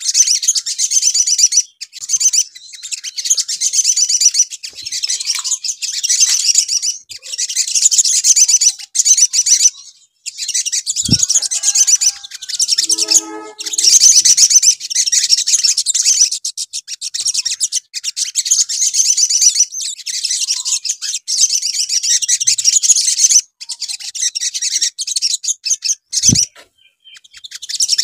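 Olive-backed sunbird song: fast, high-pitched twittering trills in bursts of a second or two with short gaps. It is sunbird lure song ('pancingan'), meant to rouse other sunbirds. A brief low thump and a short lower call come twice, about 11 s in and near the end.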